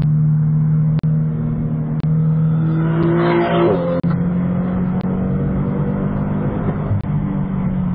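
Toyota 86's naturally aspirated flat-four with an Invidia N2 cat-back exhaust, droning steadily under acceleration on track, heard from inside the cabin. About three and a half seconds in, a brief brighter sound falls in pitch. There are short dropouts about once a second.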